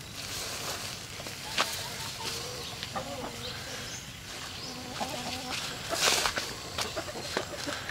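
Chickens clucking quietly in a few short calls, over rustling and footsteps through grass, with a brief louder rustle about six seconds in.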